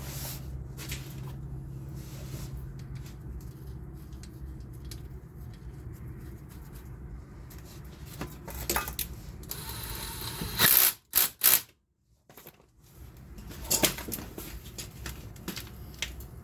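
Scattered metallic knocks and clicks as a new CV axle is tapped and pushed into the transmission until its snap ring seats, with a loud cluster of knocks about ten to eleven seconds in. A low steady hum runs under the first few seconds.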